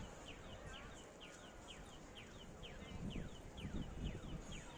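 Small birds calling: a quick, continuous run of short high chirps, each falling in pitch, about four a second, over a low background rumble.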